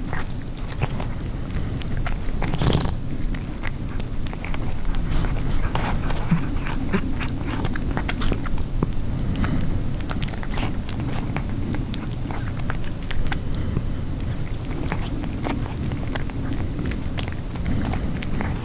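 Tabby cat chewing a raw chicken neck: irregular crunches and clicks of teeth working the meat and bone, with a louder crunch about three seconds in, over a steady low rumble.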